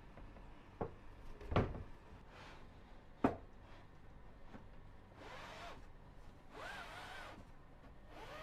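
Wooden boards being handled: three sharp knocks in the first few seconds, then two longer scraping rubs with a squeak in them, about five and seven seconds in.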